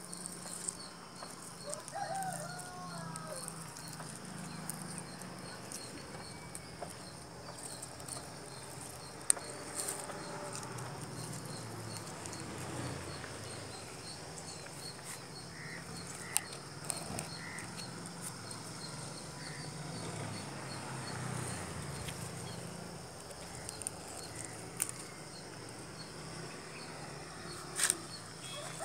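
Background outdoor sound: chickens clucking now and then, most clearly about two seconds in and again near the end, over a steady fast high ticking. A sharp click stands out about nine seconds in.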